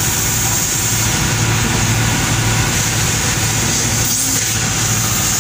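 Ship's engine running aboard a docked landing craft, a steady low hum with an even hiss above it that holds unchanged throughout.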